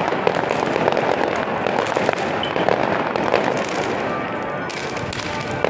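New Year fireworks: a dense, continuous crackling and popping of aerial shells and firecrackers, with sharper louder bangs now and then.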